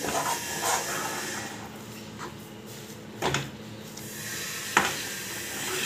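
Spatula stirring and scraping a thick, doughy sweet mixture in a nonstick pan, with a couple of sharp knocks about three and five seconds in.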